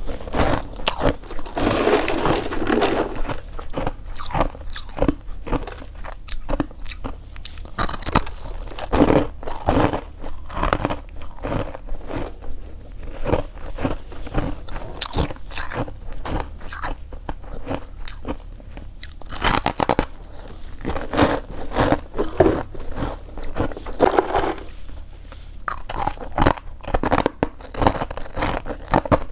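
Freezer frost being bitten and chewed close to the microphone: a dense run of sharp, crisp crunches, with heavier bites about two seconds in and again around twenty and twenty-five seconds.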